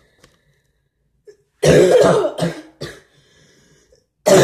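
A person coughing hard and close to the microphone: a fit of several loud coughs about one and a half seconds in, and another cough near the end.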